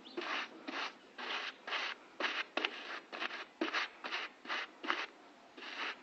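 Quick, irregular hand strokes scraping over a vehicle body panel, about two or three short rasps a second.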